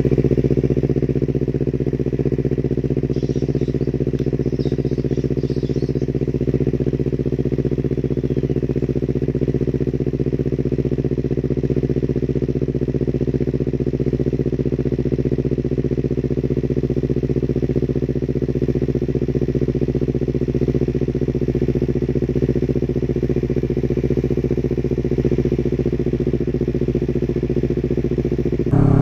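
Honda CBR250RR with an R9H2 aftermarket exhaust idling steadily at low rpm, a deep, even exhaust note that holds the same pitch throughout.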